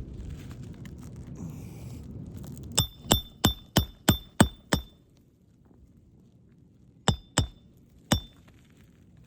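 Hammer driving a roofing nail into a new asphalt shingle: seven quick blows in about two seconds, then three more a few seconds later, each with a short metallic ring.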